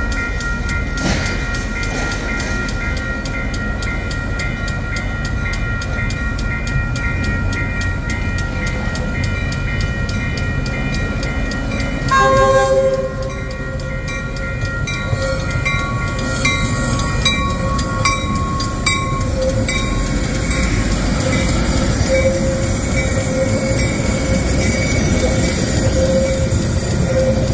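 Metra commuter train on the tracks, with steady rhythmic ringing and a short horn blast about twelve seconds in, the loudest moment.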